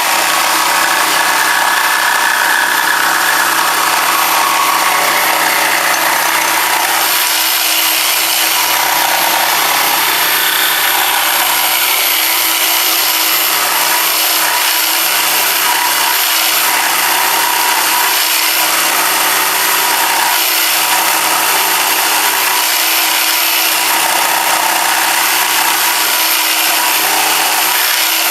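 Jigsaw with a 10-teeth-per-inch blade cutting through 3/4-inch plywood, running steadily and pretty loud, with a thin high motor whine over the rasp of the blade.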